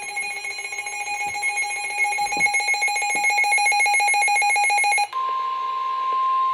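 Emergency Alert System warning tones: a rapidly pulsing, buzzing multi-tone alarm for about five seconds, then an abrupt switch to a steady single-pitch alert tone.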